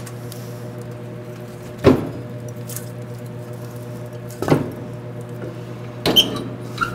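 Steady low hum in a workshop, broken by three short clattering knocks about two seconds apart, as of hard objects being picked up and set down.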